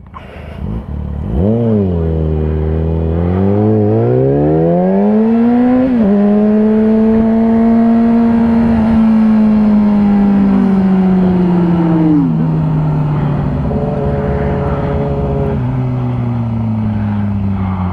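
Sport motorcycle engine pulling hard, its note climbing for the first few seconds, dropping sharply with a gear change about six seconds in, then holding a high, steady note that slowly sags, with brief dips near twelve and sixteen seconds.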